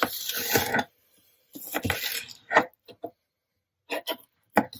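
Kitchen knife slicing slightly frozen chicken tenderloins on a plastic cutting board: several short scraping strokes, then a few sharp clicks of the blade meeting the board near the end.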